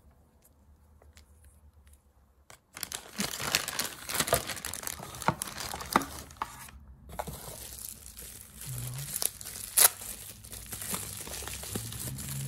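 Plastic bags and bubble-wrap packaging crinkling and rustling as they are handled and lifted out of a box, starting about three seconds in, with one sharper crackle near the end.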